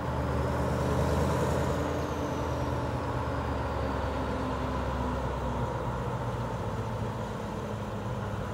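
Alsthom diesel-electric locomotive's engine running with a steady low drone as it pulls a passenger train out of the station and approaches.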